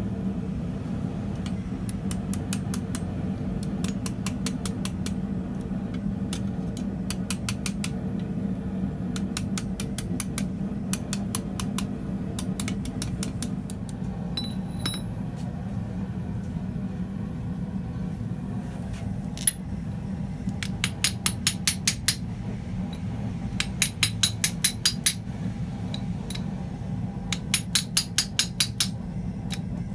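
Hand hammer striking hot steel on a steel anvil in quick bursts of blows, about five a second, each blow with a bright metallic ring. The bursts are faint at first and loud from a single hard strike a little past halfway, over a steady low hum.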